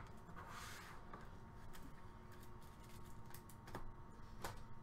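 Faint clicks and taps of a stack of trading cards being handled and set down on a wooden desk, with a couple of sharper ticks near the end.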